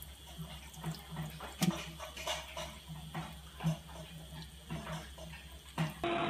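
A kitchen faucet runs a thin stream into a stainless steel sink while a cat laps from it. Soft, irregular lapping pulses come about once or twice a second over the running water.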